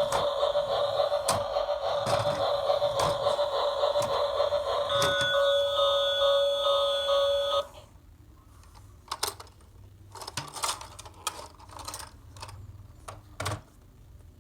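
Battery-powered toy train running: a steady warbling motor whine with regular clicks, which cuts off suddenly about eight seconds in, followed by scattered light plastic clicks and knocks.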